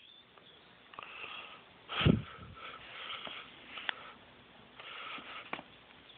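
Pitbull puppy sniffing in short bursts, with one louder burst about two seconds in.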